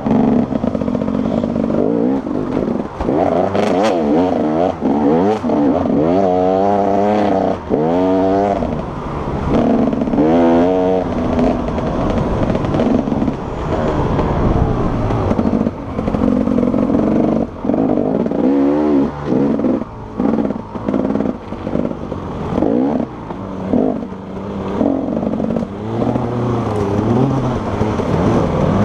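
Enduro motorcycle engine heard close up from the bike itself, revving up and down over and over as the rider accelerates, shifts and backs off the throttle. Rattles and knocks from the bike over rough ground come through, with several sharp knocks in the middle part.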